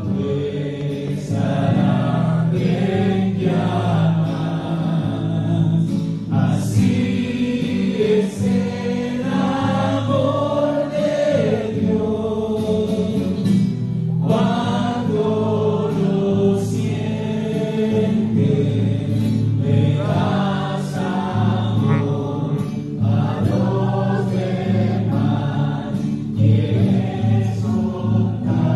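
A worship song sung by a congregation together with a lead singer on microphone, accompanied by acoustic guitar.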